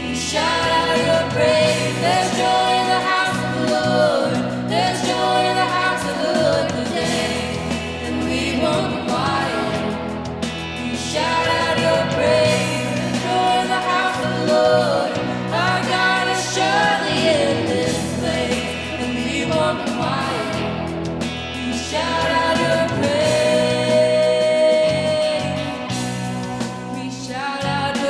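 Congregational worship song: singing in phrases of a few seconds over a steady band accompaniment.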